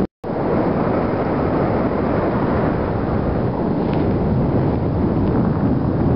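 Airflow buffeting the microphone of a camera carried by a paraglider in flight: a steady, loud rush, heaviest in the low end. It drops out for a split second just after the start.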